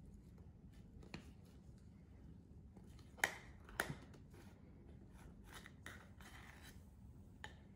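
Light clicks and knocks of a metal puttu maker tube against a ceramic plate as steamed puttu is pushed out of it, the sharpest pair a little after three seconds in, with soft rubbing sounds later on.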